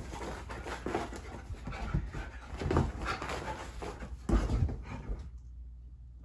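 Dog panting in a rhythmic run of breaths, with two heavier thumps in the middle.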